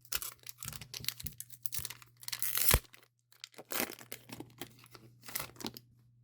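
Foil Pokémon booster-pack wrapper being torn open and crinkled in the hands, in a series of short rustling tears, loudest about two to three seconds in.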